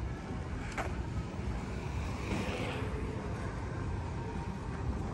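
Steady low outdoor rumble, with a single sharp click just under a second in.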